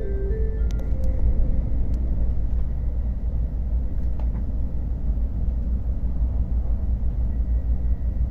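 Steady low rumble of an N700S Shinkansen train running, heard inside the passenger cabin. The last notes of the in-car chime fade out in the first second, and a few faint clicks follow.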